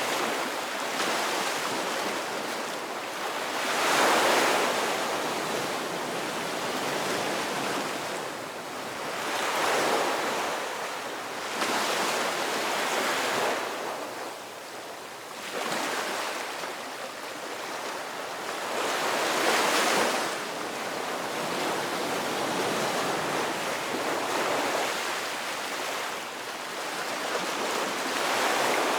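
Ocean waves breaking and washing on a shore, a steady surf rush that swells with a new wave every few seconds.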